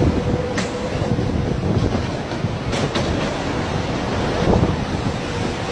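Typhoon-force wind blowing hard across the phone's microphone, a loud steady rush heavy in the low end, with a few sharp clicks in the first half.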